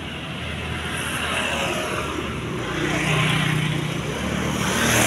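Road traffic: vehicles passing on the street, the rushing sound swelling and fading a few times, loudest near the end.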